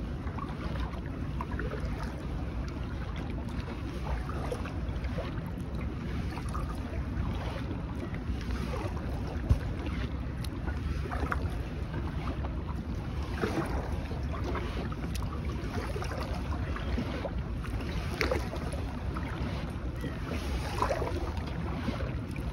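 Wind rumbling on the microphone while a plastic sit-on-top kayak is paddled, with scattered light water splashes and drips, and one sharp knock about nine and a half seconds in.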